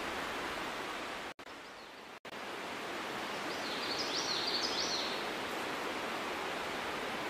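Steady outdoor background hiss. About halfway through, a bird gives a quick run of short, high chirping notes. The background cuts out briefly twice, about one and a half and two seconds in.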